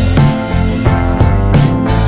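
Music with a steady beat, with guitar and drums.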